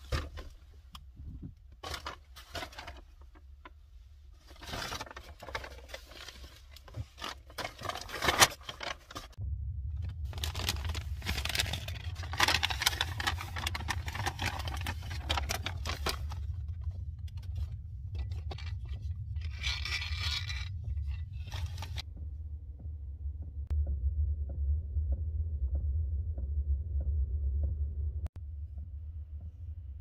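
Coffee grinder grinding beans: a few seconds of handling clicks and scrapes, then a steady low grinding rumble with gritty scraping bursts that stops abruptly near the end.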